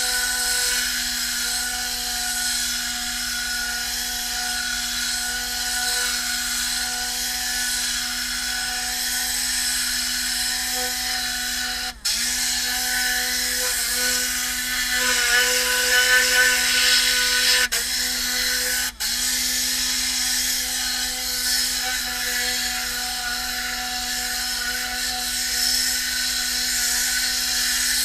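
Tornador air-powered cleaning gun running on compressed air: a steady, loud hiss with a humming tone over it. It cuts out for a split second three times around the middle.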